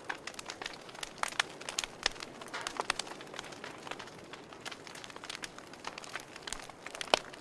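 Firewood burning in a glass-fronted camping wood stove, crackling with irregular sharp pops, the loudest a little before the end.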